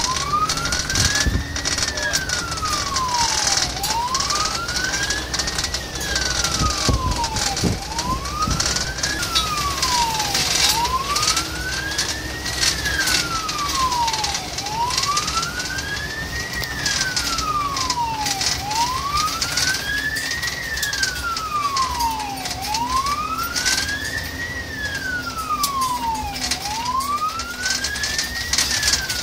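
Fire engine's wailing siren heard from inside the cab of a CAS 20 Scania fire tender: one tone rising and falling slowly, about one cycle every four seconds, over the truck's engine and road noise.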